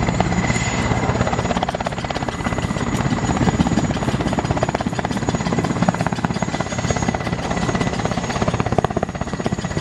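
Helicopter rotor sound effect: a fast, even chopping over a steady engine hum, running without a break.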